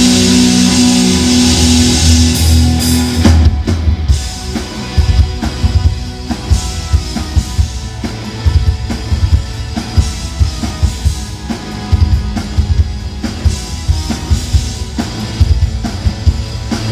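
Live rock band playing in a sound check: held electric guitar and bass chords ring out for about three seconds, then the drum kit comes in with a steady beat under guitar and bass.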